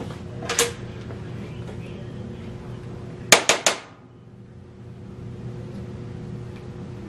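Handling noise from a Teflon MIG gun liner being pulled out and looped by hand: a soft rustle, then a quick run of four sharp clicks about three and a half seconds in, over a steady low hum.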